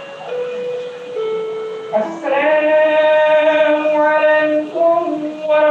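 Music: a slow melody of long held notes that step from pitch to pitch, quiet at first and much louder from about two seconds in.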